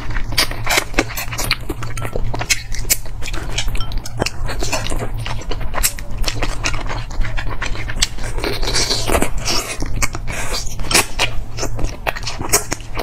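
Close-miked chewing of soy-braised forest frog: a dense run of sharp mouth clicks and smacks, over a low steady hum.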